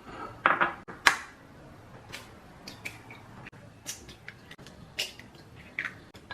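Scattered sharp clicks and taps of kitchen food preparation, the loudest about a second in, with quiet handling noise between.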